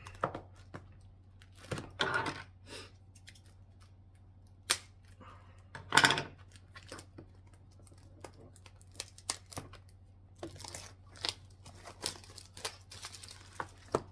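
Plastic shrink-wrap being crinkled and torn off a sealed trading-card booster box, in scattered short rustles and clicks; the loudest rustle comes about six seconds in.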